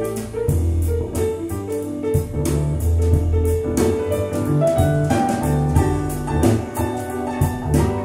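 Jazz with piano, double bass and drums, with a steady cymbal beat, played back through Pioneer TAD S-1EX loudspeakers as a sound sample.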